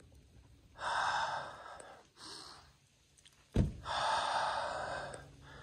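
Heavy breathing close to the microphone: two long breaths about a second each with a short one between, and a dull thump about three and a half seconds in.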